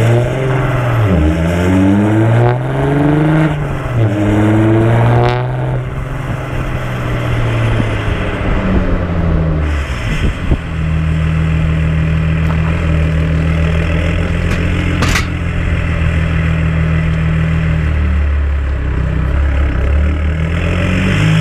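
Audi A5 3.0 TDI V6 diesel engine running through an open exhaust: the revs climb twice in the first few seconds, then it settles and runs at a steady engine speed.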